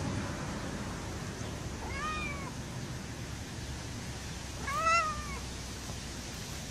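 Grey tabby kitten meowing twice, a short call about two seconds in and a louder, longer one near five seconds, each rising then falling in pitch, over a steady background hiss.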